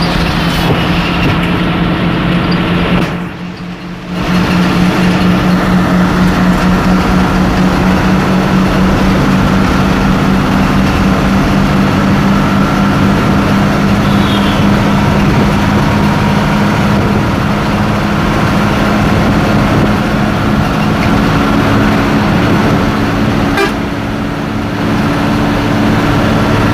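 Hino AK1J bus engine running at highway speed, a loud, steady drone that dips briefly about three seconds in.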